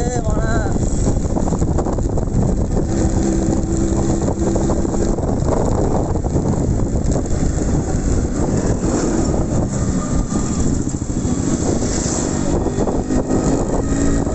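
Yamaha RX100's two-stroke single-cylinder engine running while the motorcycle is ridden on a road, under a steady rush of wind and road noise. The engine note rises a little near the end.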